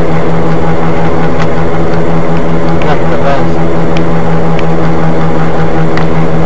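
Loud, steady vehicle engine drone: one constant low hum with its overtones over a dense noise bed, with a few faint clicks.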